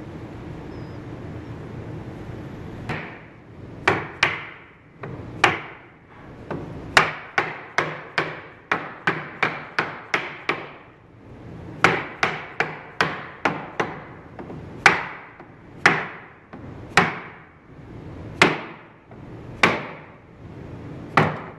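Orange mallet striking the edge of a plywood cabinet panel, about 25 sharp blows, some in quick runs of two or three a second and others a second or more apart. A steady low hum comes before the first blow, about three seconds in.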